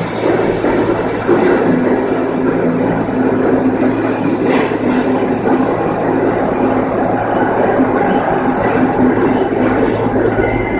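New York City Subway R68 train cars rolling past along the platform track: a steady loud rumble of steel wheels on rail under a constant low hum, with one sharp knock about four and a half seconds in.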